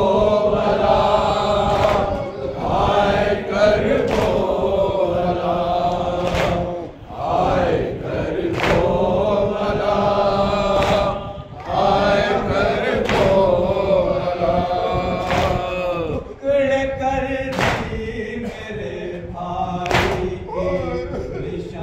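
A group of men chanting a Shia noha (Karbala lament) in unison behind a lead reciter. Sharp slaps of hands beating on chests (matam) fall in time, about one every two seconds.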